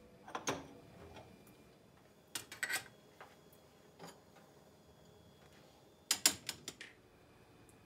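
Washed dishes and utensils clinking lightly as they are set onto a stainless-steel wire drying rack: a few separate groups of short clicks and clatters, the sharpest and quickest run near the end.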